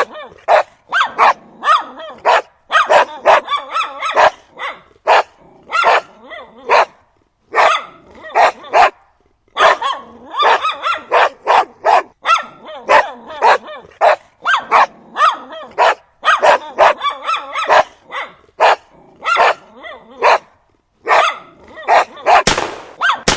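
A large dog and a puppy barking, many short sharp barks in quick runs with brief pauses between.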